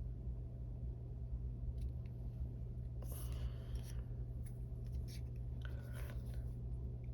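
Paper being handled at a craft desk: faint rustling and scraping, strongest about three seconds in, with a few light taps, over a steady low electrical hum.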